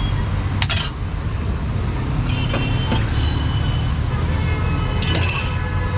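Steady rumble of road traffic, with a couple of short sharp clacks, one about a second in and one near the end.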